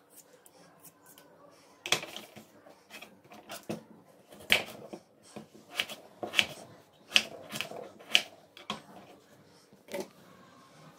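Kitchen knife slicing through a peeled potato onto a plastic cutting board: about a dozen sharp knocks, one or two a second, from about two seconds in until near the end. Before them, faint scraping clicks of a vegetable peeler on the potato.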